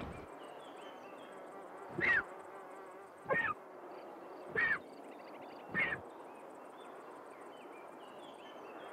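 Griffon vulture chick begging: four short cries, each bending in pitch, a little over a second apart, over faint high chirps in the background.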